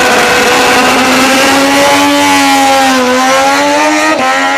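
Racing engine sound effect: a loud, steady engine note holding nearly one pitch, dipping slightly about three seconds in.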